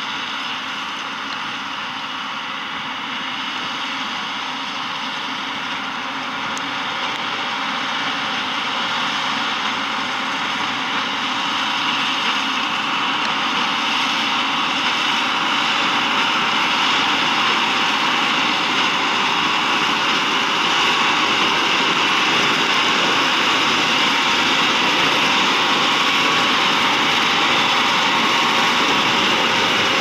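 John Deere 6R 185 tractor and Claas Quadrant large square baler running while baling straw. A steady, dense machinery noise that grows louder as the outfit draws near.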